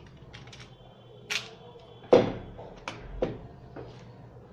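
A series of sharp handling clicks and knocks from equipment being picked up and set down on a work surface, about seven in all, the loudest a little over two seconds in.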